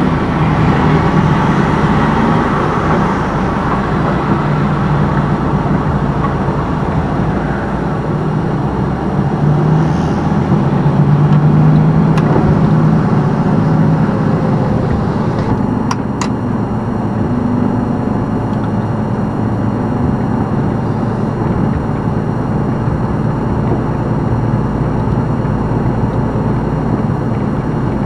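Semi-truck's diesel engine running as the truck drives slowly, its pitch and loudness swelling for a few seconds near the middle. Two short sharp clicks come a little past halfway.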